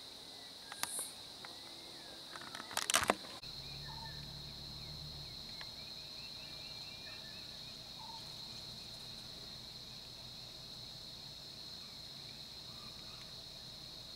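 A steady, high-pitched drone of insects, with a short cluster of sharp clicks about three seconds in. After that a low steady hum joins the insects.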